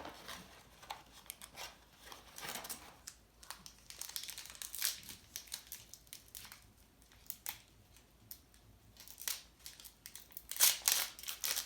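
Crinkling and rustling of a trading card pack wrapper and cards being handled, in irregular short bursts, with the loudest crinkles near the end.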